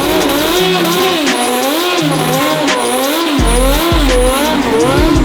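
Turbocharged mini truck doing a burnout: the engine is held at high revs, the tyres squeal with a pitch that wavers up and down, and a faint high whistle rises again and again as the turbo spools.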